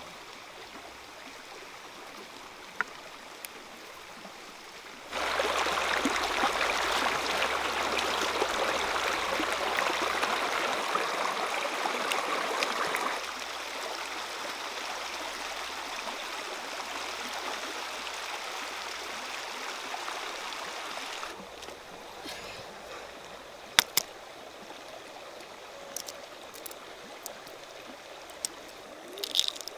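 Shallow stream flowing over rocks, a steady water hiss that starts suddenly about five seconds in, drops in level about halfway through and falls away later on. A few sharp clicks come near the end.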